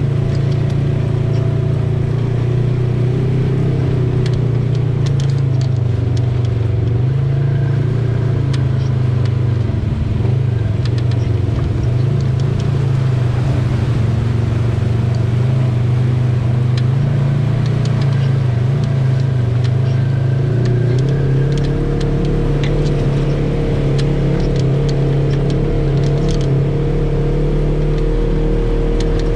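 Off-road vehicle engine running steadily while driving on a trail, with scattered light clicks over it. About two-thirds of the way through the engine note changes and a deeper rumble comes in.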